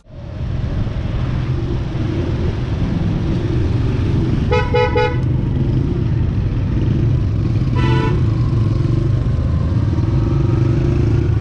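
Motorcycle engine running steadily at low riding speed, with a vehicle horn honking twice: once about four and a half seconds in, and a shorter toot near eight seconds.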